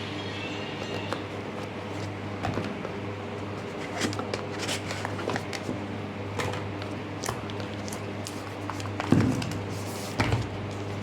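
Handling noises of a phone's retail box and packaging being opened: scattered clicks, taps and rustles, with two louder knocks near the end, over a steady low hum.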